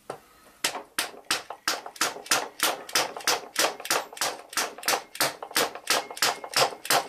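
A screwdriver fastening a new front sight onto an air rifle's barrel, giving a steady train of sharp clicks, about three a second.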